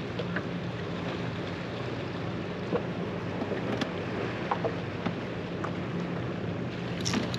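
Steady low hum of a boat engine under wind noise on the microphone and water around the hull, with a few faint clicks.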